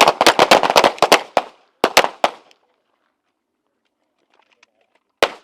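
A line of handguns firing in a rapid, overlapping string of shots for about a second and a half, then three more shots around two seconds in and a single last shot about five seconds in.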